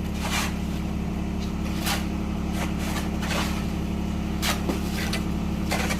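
A steady low machine hum, with about half a dozen short scrapes or knocks scattered through it.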